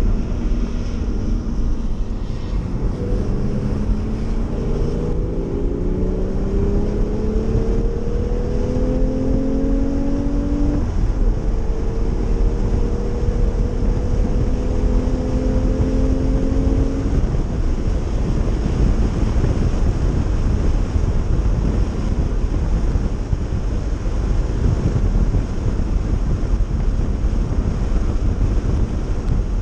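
Porsche 911's flat-six engine heard from inside the cabin, accelerating with its pitch rising for several seconds, dropping at an upshift about eleven seconds in, then rising again. After about seventeen seconds the engine tone fades, leaving steady tyre, road and wind noise.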